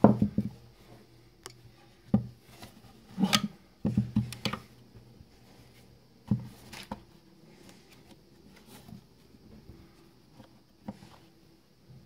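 Hands handling a plastic Tenda N304 Wi-Fi router and its plug-in power adapter: a string of knocks, clicks and light rubbing as they are set down and an antenna is turned. The handling is busiest in the first five seconds, with a few quieter taps later.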